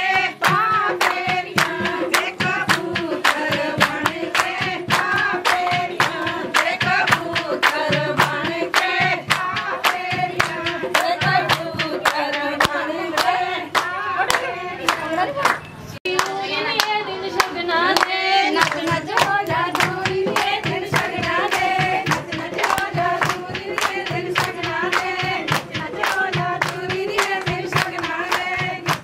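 Group of voices singing a devotional hymn (bhajan) together, with steady hand-clapping in time, about two claps a second. There is a brief break about halfway through, then the singing and clapping go on.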